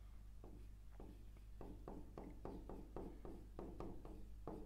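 Faint run of soft taps and scrapes, about four a second, from a stylus being drawn across an interactive touchscreen board. A low steady hum sits underneath.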